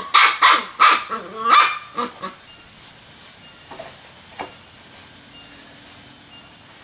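Young dog barking, about seven quick, sharp barks in the first two seconds or so, then falling quiet apart from a couple of faint sounds.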